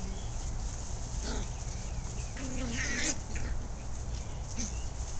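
Puppies playing, with a few short yips and whines about a second in, near the middle and near the end, over a steady low hum.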